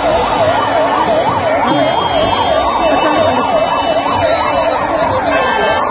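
Vehicle siren in a fast rising-and-falling yelp, about three sweeps a second, over the din of a large crowd.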